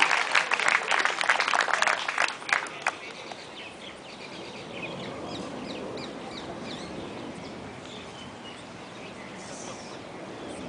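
Audience clapping for about three seconds and dying away, then birds chirping in short high calls over a quiet background.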